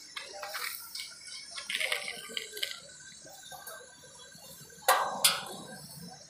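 Metal parts of a stainless steel seating unit being handled and fitted during assembly: scattered light clinks and rattles, with two sharp metallic knocks about five seconds in.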